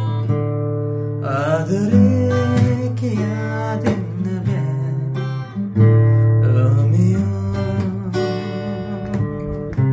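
Acoustic guitar played in a slow song, with chords and bass notes changing every second or so, and a man singing along twice over it.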